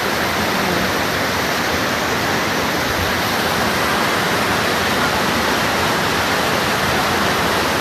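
Rushing water, a steady loud rush with no change.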